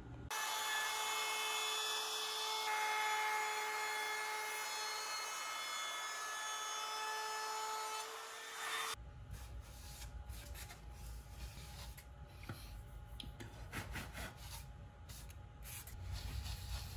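Compact trim router running as it cuts along the edge of a walnut board: a steady high whine over dense cutting noise, its pitch shifting a little with the load. The router stops about nine seconds in, and soft rubbing of a cloth wiping finish onto the wood follows.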